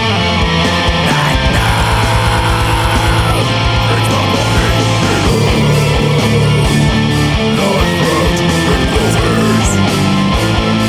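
Death metal music: heavily distorted electric guitars over fast, driving drums with rapid bass drum hits, loud and dense throughout.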